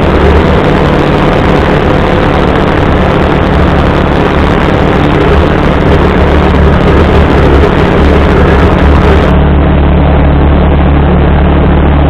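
CFMoto UForce 600 side-by-side's engine running at a steady speed while the machine drives along a dirt trail: a loud, constant drone with no revving. About nine seconds in the sound turns duller, losing its hiss.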